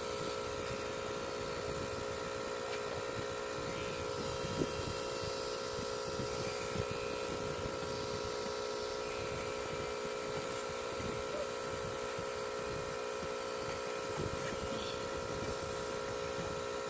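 Pen-style rotary tattoo machine running with a steady, even hum, with faint irregular rustling underneath.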